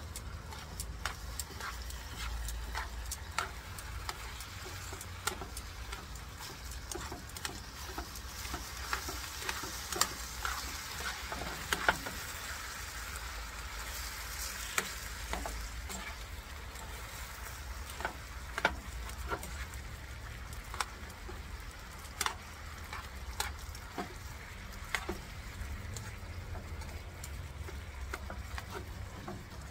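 Diced chicken tocino sizzling in its marinade in a frying pan, with a steady hiss, while metal tongs stir and turn the pieces, clicking and scraping against the pan at irregular intervals.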